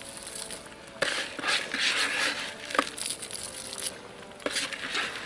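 Crushed tortilla chips crunching and rustling in several bursts as they are crumbled by hand and scattered from a plate onto a casserole.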